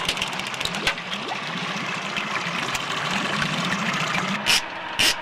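Boat engine running steadily, with a few sharp knocks near the end.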